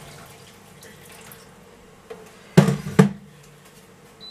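Water pouring from a kettle, a faint steady trickle, broken near the middle by two loud short sounds about half a second apart.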